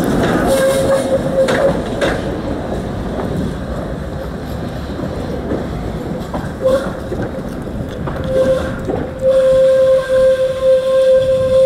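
Tatra T3A tram rumbling and clattering over worn, uneven track as it pulls away, with brief squeals from the wheels. From about nine seconds in the wheels set up a steady, high-pitched squeal as the tram takes the curve.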